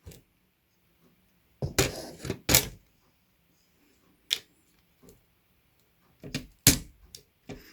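A scattering of sharp clicks and knocks from small hard plastic parts: desoldered mechanical keyboard switches and the keyboard being handled on a work surface. The loudest come about two seconds in and again near the end.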